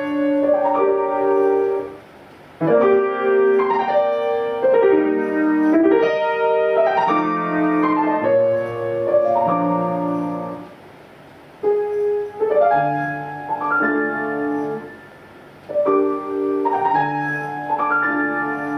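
Piano playing phrases of chords and melody, with brief pauses between the phrases.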